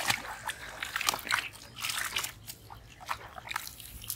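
Irregular splashing and sloshing of shallow water as hands grope for fish inside a bamboo polo fish trap.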